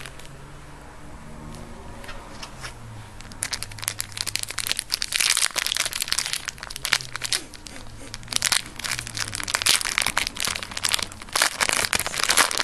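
Foil Yu-Gi-Oh booster pack being crinkled and torn open by hand: a dense, irregular crackle of foil that starts about three seconds in and keeps going.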